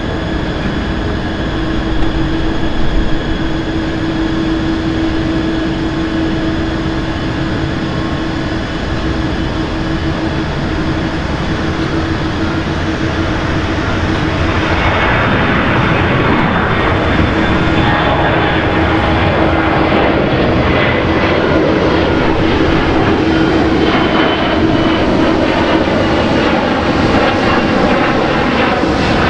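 Boeing 737-500's CFM56-3 turbofan engines at takeoff power as the jet rolls and climbs out. The engine noise swells about halfway through as it passes close, the pitch falls, and a loud steady whine holds as it climbs away.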